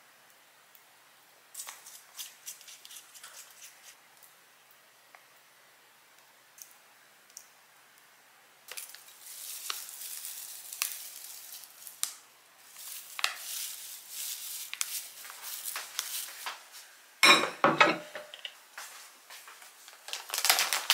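Kitchen handling sounds while an okonomiyaki is dressed: light clicks and squirts of squeeze bottles, then a long stretch of dry crinkling as dried bonito flakes are handled and scattered over it. A few loud knocks of things set down on the counter come about two thirds of the way in, and plastic food packaging rustles near the end.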